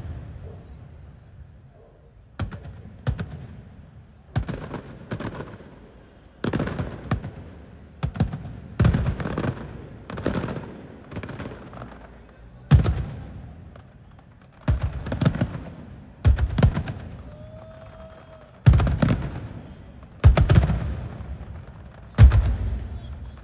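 Fireworks display: a long run of aerial shell bursts, a loud bang every second or two, each one followed by a rolling echo that fades away.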